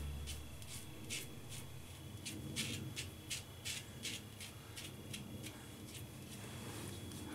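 Safety razor scraping through beard stubble in short, quick strokes, about three a second, loudest in the middle.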